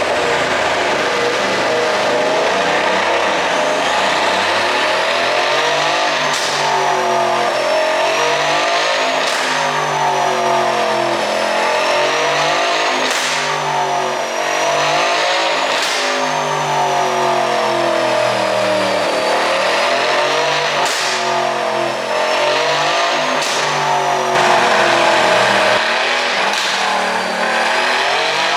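Mercedes-AMG C63 S's twin-turbo V8 revving up and down again and again through an Akrapovic exhaust, with sharp pops and crackles from the exhaust at several points as the revs fall. The pops on overrun are the effect an ECU pop tune is written to produce.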